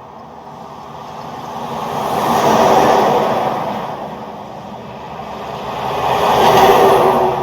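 Cars driving past, two pass-bys: the sound swells and fades about three seconds in, then swells again near the end.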